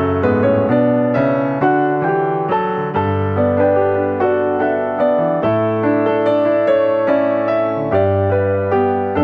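Background piano music, a gentle melody over a steady bass.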